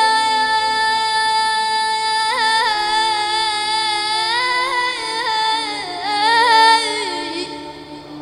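A boy's solo voice chanting an Arabic supplication (du'a) in a melodic style into a microphone. He holds long notes, decorates them with wavering ornaments, and fades out near the end.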